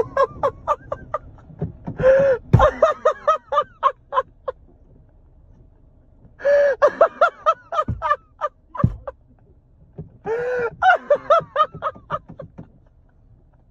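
A person laughing hard in repeated wheezing fits. Each fit opens with a squeal-like gasp and breaks into a fast run of short breathy 'ha' pulses that trail off, and a fresh fit starts every few seconds. A few dull thumps sound between the fits.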